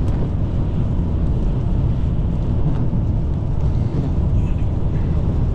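Steady low rumble of a car driving, road and wind noise with no distinct tones or knocks.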